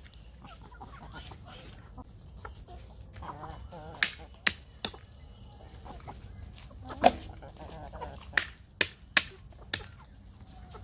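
Chickens clucking softly while feeding, with sharp taps of beaks pecking food from a metal spoon: a few taps about four seconds in, a louder one near the middle, then a quick run of four near the end.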